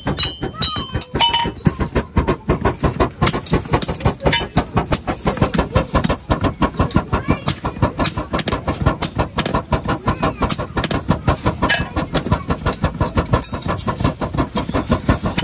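Hand-pumped forge bellows puffing air into a charcoal fire in a fast, even rhythm of strokes, keeping the fire hot while metal heats in it.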